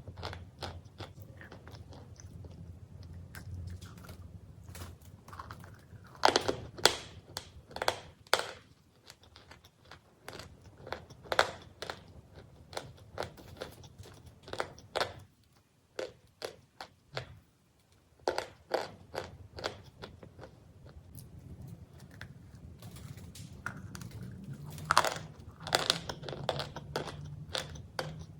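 Crunchy cookies being bitten and chewed: a long run of sharp, irregular crunches in clusters, with a pause of about two seconds roughly halfway through.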